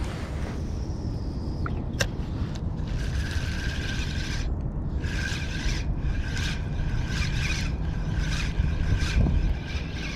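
A fishing reel being cranked in short bursts, its gears whining in a steady tone with each turn of the handle, over a steady low rumble. A sharp click comes about two seconds in.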